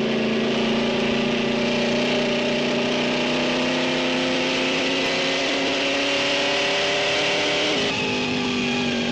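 Alfa Romeo 159's supercharged straight-eight racing engine running hard, its pitch climbing slowly as the car gathers speed, then dropping suddenly near the end at a gear change.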